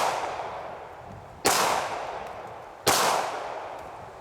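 A Beretta 92FS 9mm pistol firing Hornady 135-grain Critical Duty rounds: two shots about a second and a half apart, each with a long fading echo. The echo of an earlier shot is dying away at the start.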